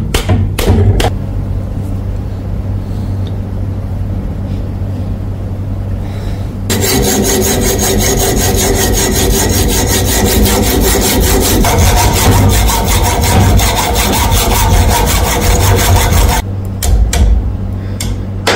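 Woodworking on a wooden handle: a few sharp taps, then a tool scraping over the wood in a fast, dense rhythm, quieter at first and much louder from about seven seconds in. A few more sharp taps come near the end.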